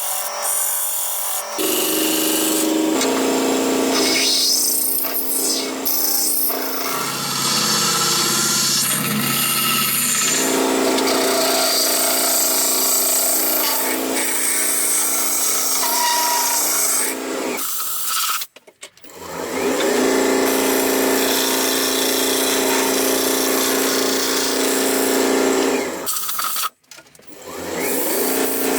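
A power tool working on wood, running continuously with a steady motor hum under a rough grinding noise, stopping briefly twice.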